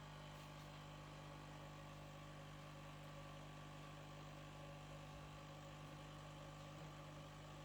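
Tassimo by Bosch Style coffee machine running its pump to brew a milk T-disc, giving a faint, steady hum.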